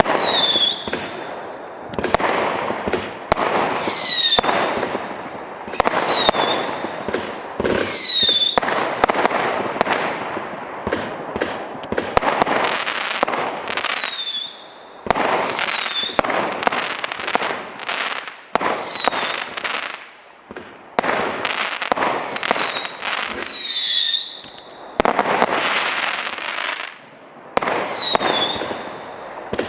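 A 504-shot, 0.6-inch firework cake firing volley after volley of rapid shots and bursts, with repeated shrill whistles that fall in pitch. The firing pauses briefly a few times.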